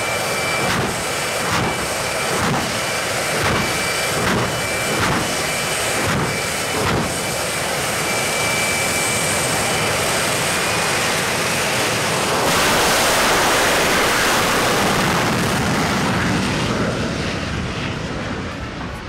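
A jet truck's jet engine running at the start line with a steady high whine, its roar surging in pulses about once a second. About twelve seconds in it suddenly goes louder to full power as the truck launches down the drag strip, then begins to fade near the end.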